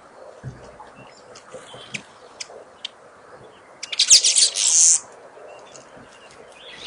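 Birds chirping with short, scattered high calls, and about four seconds in a loud burst of rapid, scratchy high sound lasting about a second.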